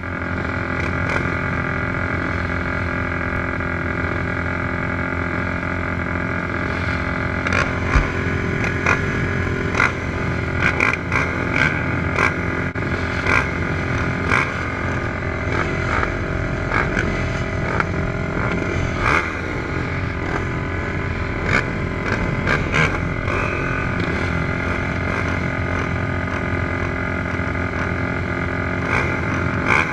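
Several 450-class racing ATV engines idling together, close to the microphone, with a steady, even note and scattered short sharp clicks.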